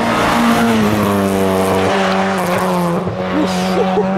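Rally car engine running hard at high, nearly steady revs, the note dipping slightly about a second in and then holding level.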